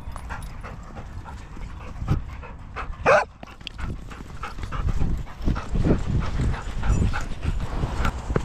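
Dogs panting close by, with one short, high-pitched bark about three seconds in, the loudest sound here, and a quick run of softer panting and scuffling in the second half.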